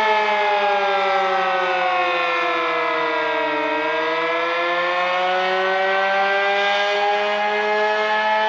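Sentry 15V2T-B dual-tone warning siren wailing on its attack cycle: the pitch falls for about three and a half seconds, then rises again. It is running short of full strength because its batteries need replacing.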